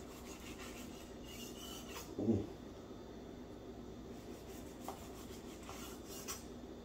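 Chef's knife sawing through seared ribeye steak on a wooden cutting board: quiet rasping strokes of the blade through the crust and against the board, with one brief low thump about two seconds in.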